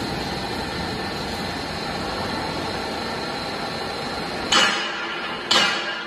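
Vertical hydraulic baler running, its pump and motor giving a steady mechanical hum as the press ram travels down. About four and a half seconds in, the low rumble stops, and two sharp metallic clanks follow about a second apart, each ringing briefly.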